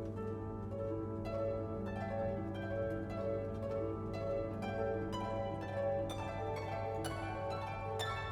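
Background music of plucked strings, harp-like and pizzicato, in a gentle run of short notes over a steady low hum.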